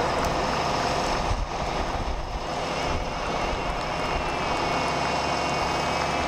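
Saab JAS 39 Gripen's single jet engine running steadily as the fighter rolls along the runway, a continuous rumble with a thin whine, dipping slightly about a second and a half in.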